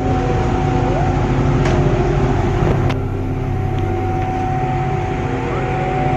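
Ship's machinery running with a steady, loud drone of low and mid hum tones, and two faint clicks partway through.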